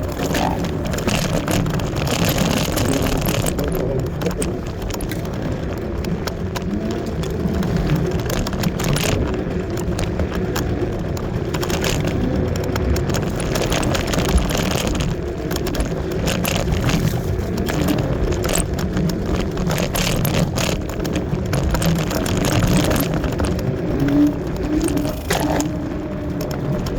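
Kaabo Wolf Warrior electric scooter riding over rough off-road ground: continuous rumbling wind and tyre noise with frequent rattles and knocks from the bumps, and a faint motor whine.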